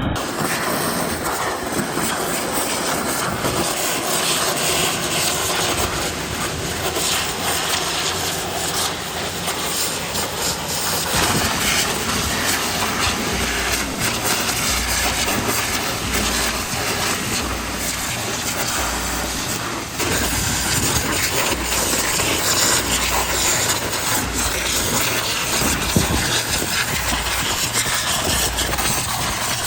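Pressure washer spraying a high-pressure water jet onto an excavator: a steady, loud hiss of spray on metal that gets slightly louder about two-thirds of the way in.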